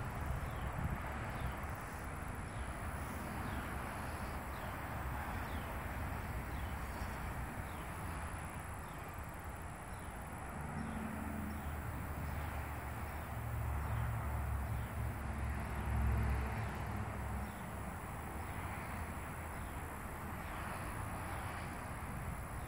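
Outdoor ambience: a steady hiss with faint short chirps repeating through it, and a low rumble that swells for a few seconds past the middle.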